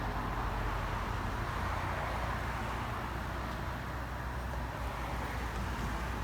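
Steady vehicle running noise: a low, even rumble under a hiss.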